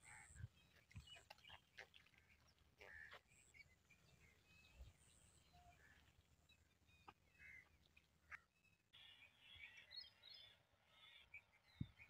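Near silence: faint outdoor ambience with a few faint, scattered bird chirps, most of them about three-quarters of the way through.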